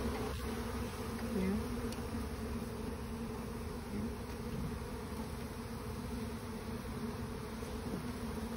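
Many honey bees buzzing in a steady hum from the disturbed colony. Now and then a single bee flies close past, its buzz briefly rising and falling in pitch.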